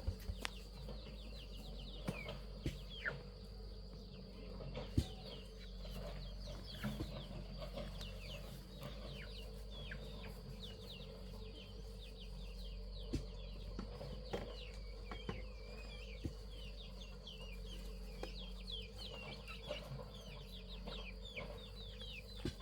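Chickens, with a steady stream of short, high, falling peeps and scattered light taps.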